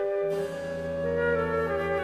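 Instrumental background music: a slow melody of held notes over a sustained low note that comes in about a third of a second in.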